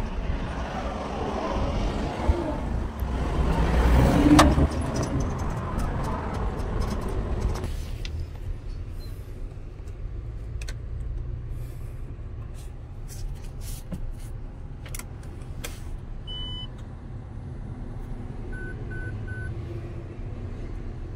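Handling noise with a bump about four seconds in as the truck cab is entered. Then a low hum, several sharp clicks at the ignition switch, one short beep and then three quick beeps from the truck's dashboard warning buzzer as the ignition is switched on.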